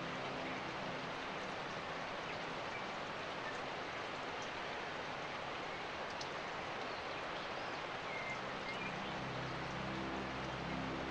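Steady rain, a constant even hiss. A low motor hum fades out about a second in and comes back near the end, with a few faint chirps.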